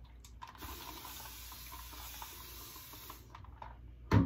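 Bathroom sink tap running for about two and a half seconds, water rinsing a double-edge safety razor mid-shave, then one sharp knock near the end.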